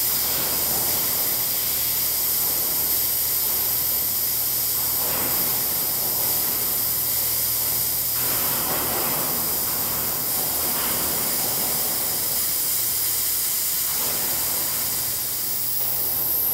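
Residual oxygen hissing steadily out of the purge valve of an oxygen transfill hose set. The hoses are being vented of their leftover pressure after the aircraft's bottles were filled to 1000 PSI, before the fittings are disconnected.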